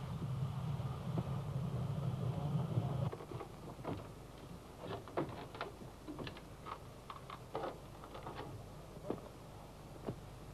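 Steam train running with a steady low rumble that cuts off suddenly about three seconds in. A scattered series of short, sharp knocks and clanks follows.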